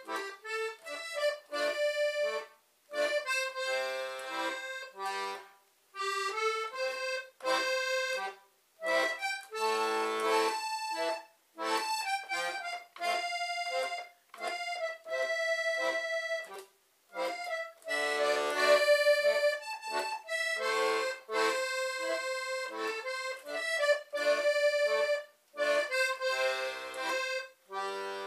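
Diatonic button accordion (Portuguese concertina) playing a tune in phrases, with brief pauses between them every few seconds.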